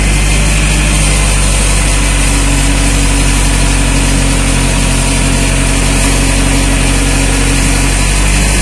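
Delivery truck's engine running steadily at a constant speed while its load of kerbs is unloaded, with a faint higher whine for a few seconds in the middle.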